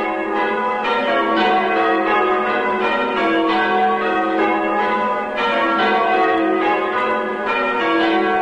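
A ring of six bronze church bells, all cast by the Bilby family of Chew Stoke, being rung in changes: the bells strike one after another in a steady stream, each tone ringing on over the next.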